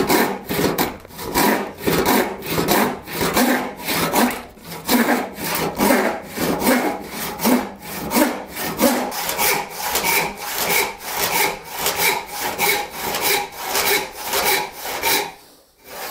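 Large hand saw ripping lengthwise down a wooden stick, in a steady, quick rhythm of push-and-pull strokes that stops shortly before the end.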